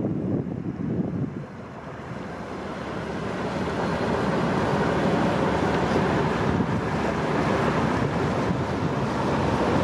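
Wind buffeting the microphone, with the rushing wash of a passing motor cargo ship's wake and propeller water along the canal bank; the water rush builds from about three seconds in and stays steady.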